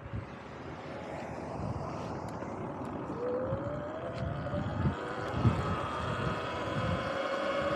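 Sur-Ron electric dirt bike's motor whining, rising steadily in pitch as the bike speeds up from about three seconds in, over gusty wind rumble and tyre noise.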